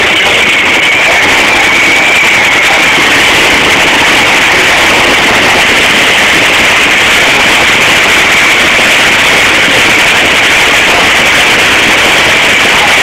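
The supercharged nitromethane V8 of an NHRA nitro dragster running at the starting line, so loud that it overloads the microphone into a steady, distorted din with no change in level.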